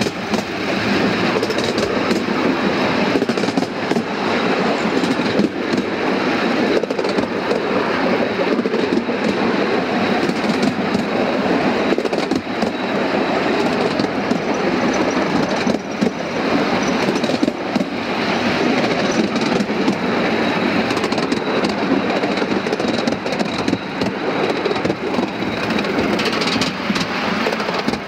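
5-inch gauge miniature train running along its raised track, heard from on board: a steady rush of wheels on the rails with occasional faint clicks.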